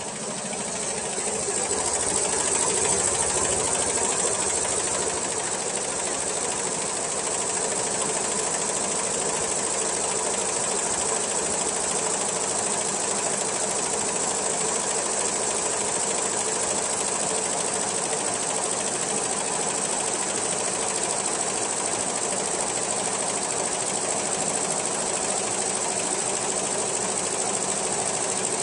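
Large multi-needle quilting embroidery machine running steadily, its needles stitching; the sound grows louder over the first couple of seconds and then holds even.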